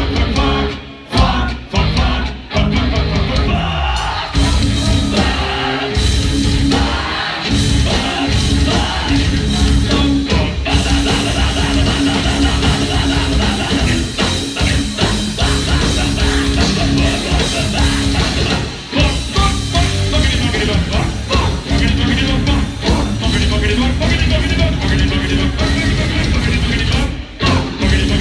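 Live heavy metal band playing loud, with distorted electric guitars, bass and drums. The song opens with a few short stop-start hits in the first couple of seconds, then runs on steadily.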